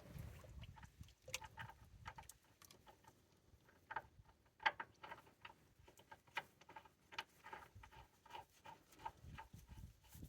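Faint, irregular light ticks and drips as a drain plug is worked back into an oil tank's drain hole while oil still drips from it into a tub.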